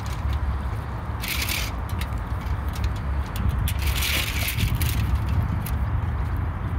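Gloved hands pressing minced meat into a hollowed-out onion: soft squelching and crunching, with a steady low rumble underneath. Two short rustling bursts come about a second in and again about four seconds in.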